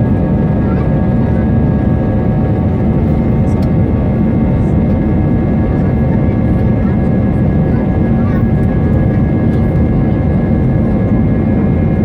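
Airbus A320 jet engines heard from inside the passenger cabin: a steady, loud roar with several steady whining tones over it.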